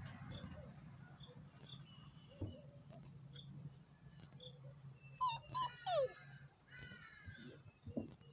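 Young Rhodesian Ridgeback puppies play-fighting, with a burst of high yelps and whines about five seconds in, one sliding down in pitch. A quieter whine follows, and there is a short low yelp near the end.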